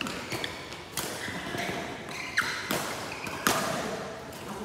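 Badminton rackets striking a shuttlecock during a doubles rally: sharp hits roughly a second apart.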